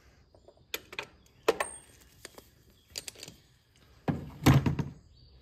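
Metal hand tools clicking and knocking as a socket and wrench are worked and lifted off an oil filter housing cap, with a louder clunk about four seconds in.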